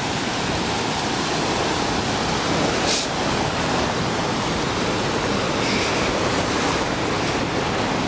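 Steady wash of ocean surf on a sandy beach, an even rushing noise, with one brief sharp hiss about three seconds in.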